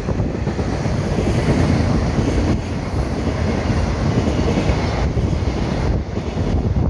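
Container wagons of a freight train rolling past close by, their wheels rumbling steadily over the rails. The last wagon goes by within the first few seconds and the rumble carries on as the train pulls away.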